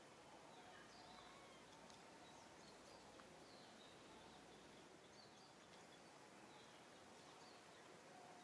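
Near silence: faint outdoor ambience with scattered short, high chirps.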